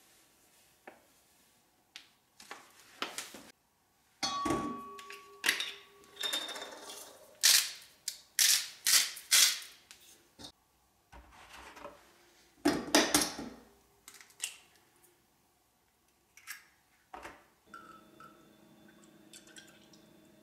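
Kitchen handling sounds while crepe batter ingredients go into a stainless steel mixing bowl: clinks, taps and knocks of the bowl, glass and utensils, with a short ringing tone after a knock about four seconds in. A faint steady hum comes in near the end.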